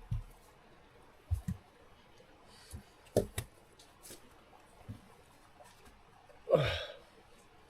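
Sparse knocks and clunks of wooden logs being handled and set in place, with a louder, longer rustling sound about six and a half seconds in.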